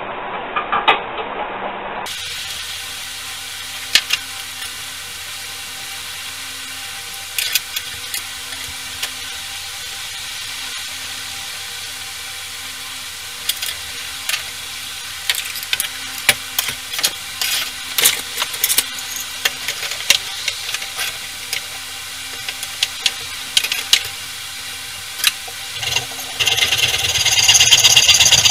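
Scattered light clicks and taps of steel tools and blade parts being handled on a workbench, over a faint steady hum. Near the end an electric power tool starts up and runs loudly and steadily.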